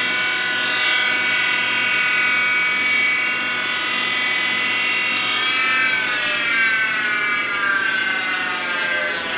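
Jet JWL-1236 wood lathe running with a steady whine from its Reeves variable-speed belt drive. About halfway through, the pitch starts to fall steadily as the speed lever is moved and the spindle slows.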